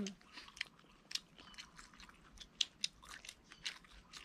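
People chewing and biting rice-paper rolls of steamed fish and herbs: faint, scattered mouth clicks and smacks.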